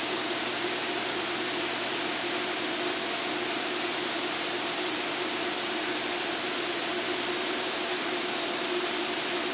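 Steady in-flight cockpit noise of an Extra 300L aerobatic plane: its six-cylinder Lycoming engine and propeller running at a constant cruise setting under a constant rush of air, with a thin high whine on top.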